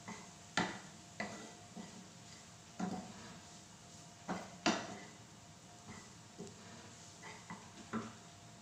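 Wooden spatula knocking and scraping against a non-stick frying pan as noodles and vegetables are stir-fried: irregular taps, the loudest about halfway through.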